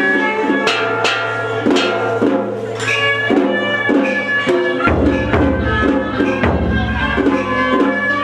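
Traditional Vietnamese ritual music ensemble playing: held melodic lines over a beat of drum and wooden-block strokes, with deeper drumming in the second half.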